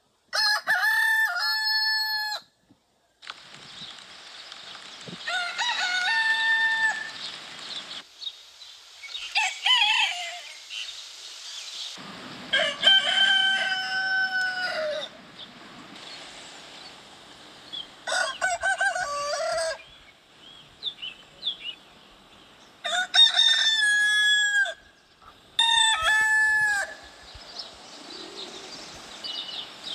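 Roosters crowing one after another, about seven long cock-a-doodle-doo crows a few seconds apart, each call held and then falling away at the end. The crows come at somewhat different pitches.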